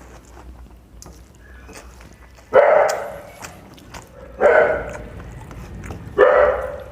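A dog barking three times, one bark about every two seconds.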